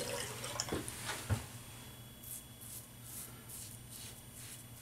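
Closed-comb Pearl Hammer double-edge safety razor scraping through lathered stubble in short, faint strokes, about two to three a second from around two seconds in. A couple of light knocks come in the first second and a half.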